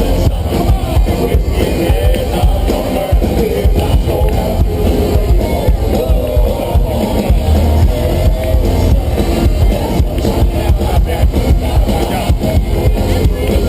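Live country-rock band playing loudly through concert amplification, with a steady drum-kit beat under amplified instruments.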